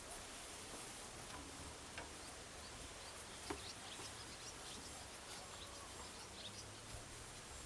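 Quiet outdoor ambience with a low steady hiss, a few short high bird chirps in the second half and a couple of faint clicks.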